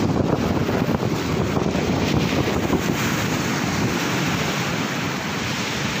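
Sea surf breaking and washing up a sandy beach, a steady rush, with wind buffeting the microphone.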